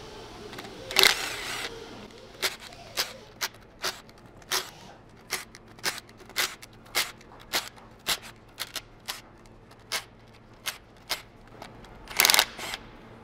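Cordless impact wrench running in two short bursts, about a second in and near the end, spinning out the transmission oil pan bolts. Between the bursts, a steady run of sharp clicks, about two a second.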